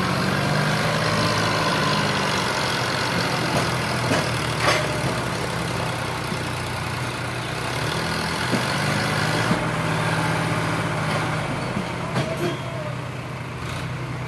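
Diesel engines of tractors and a crawler excavator running steadily, with a few short knocks about five and ten seconds in.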